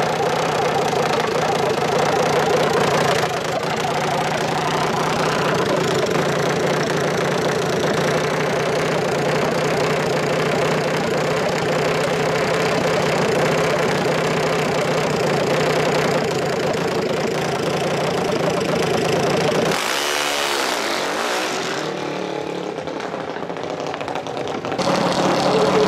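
Engine of a small open-frame drag-racing machine with a straight exhaust pipe, running steadily at about 3,500 rpm. About twenty seconds in, the sound thins out and drops in level for a few seconds, then the steady engine note comes back near the end.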